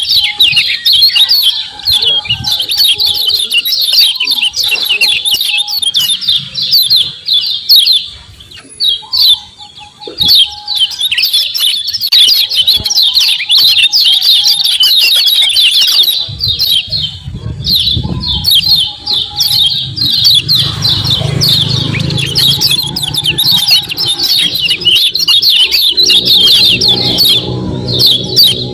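Lemon-bellied white-eye (kecial kuning) giving its rapid 'ciak ciak' chattering call, a dense run of fast, high chirps with a brief break about a third of the way in. A low rumble runs under it in the second half.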